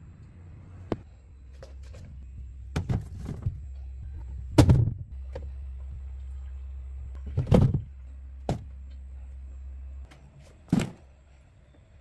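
Refrigerator doors and drawers being handled: a series of short thunks and knocks, the loudest about halfway through, over a low steady hum that stops about ten seconds in.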